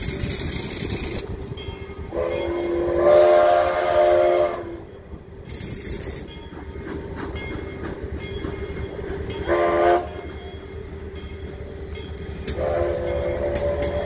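Narrow-gauge steam locomotive's chime whistle blowing three times: a long blast about two seconds in, a short toot near the ten-second mark, and a third blast starting near the end. Short bursts of hiss come between the blasts.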